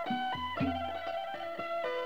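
Background music: a plucked-string melody with notes struck in quick succession over low bass notes.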